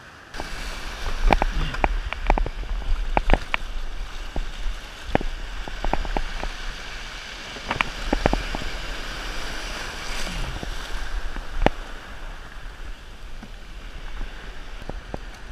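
Shore-break surf washing around a plastic pedal kayak as it pushes out, with water slapping the hull in many short, sharp splashes and knocks over a low steady rumble.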